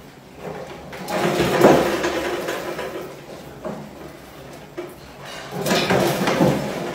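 Beer-can staircase trap on a clear plastic box rattling and rumbling in two bouts, about a second in and again near the end, as mice scramble over the cans and drop into the box.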